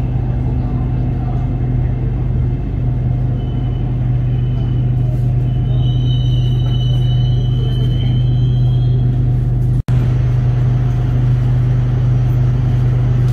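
Electric commuter train of Bangkok's SRT Red Line running between stations, heard from on board: a steady, loud rumble and hum, with a faint high whine in the middle. The sound cuts out for a split second about three-quarters of the way through.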